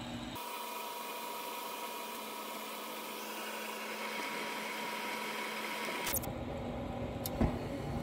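Amana gas furnace running at start-up: the draft inducer (vent) motor runs with a steady hum and whine that doesn't sound too good, with the gas burners lit. A sharp click comes about six seconds in and another a second later.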